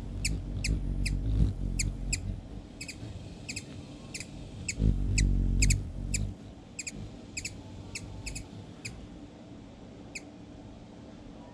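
A hummingbird giving a long series of short, sharp, high chip notes, often in pairs, about two to three a second, stopping about ten seconds in. Two bouts of low rumble lie underneath, the louder about five seconds in.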